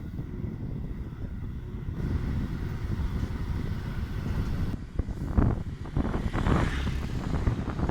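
Wind rumbling on the microphone, gusting harder from about five seconds in.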